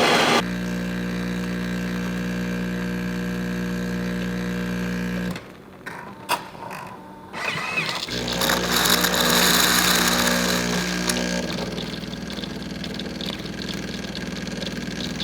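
Jura E8 bean-to-cup espresso machine. The grinder cuts off and the pump hums steadily for about five seconds while brewing the coffee. After a short pause with a few clicks, the pump starts again with a hiss as hot water is dispensed.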